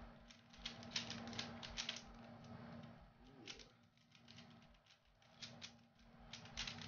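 A 3x3 Rubik's cube being turned by hand: quick flurries of small plastic clicks as the layers are twisted, with a quieter pause in the middle. These are last-layer moves near the end of a timed solve.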